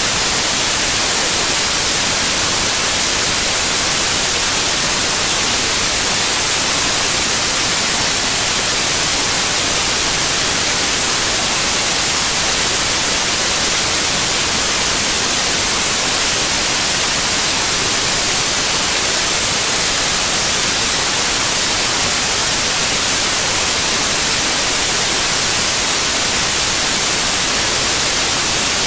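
Steady electronic static hiss, even and unchanging, with no other sound heard through it.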